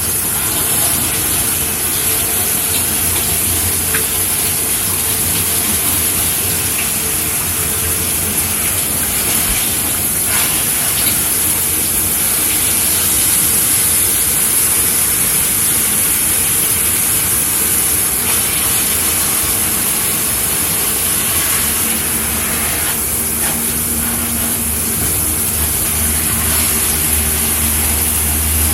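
Shower running: water spraying from the shower head in a steady hiss. A low hum runs underneath and grows stronger in the last few seconds.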